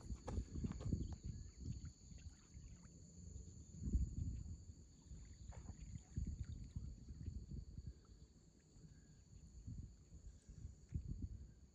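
Low, uneven rumbling gusts on the microphone, with a steady high-pitched buzzing drone behind.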